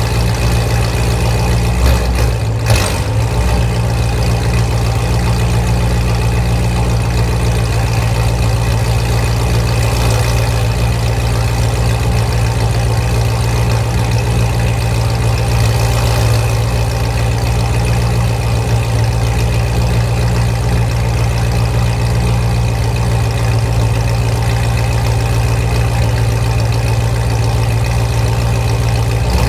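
Chevrolet Corvette's 6.2-litre V8 idling steadily through a loud exhaust, heard from behind the tailpipes in a concrete parking garage.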